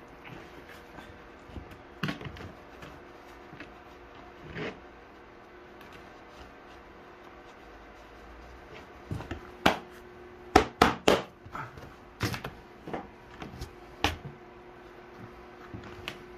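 Metal tools and parts being handled off to the side: a few scattered clicks and knocks, then a quick run of sharp clinks from about nine to fourteen seconds in.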